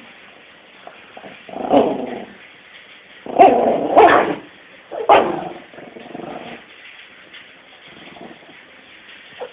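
Small Yorkshire terrier barking and growling at a person's hand in play. It comes in several short bursts, the loudest in the middle, with softer growls later.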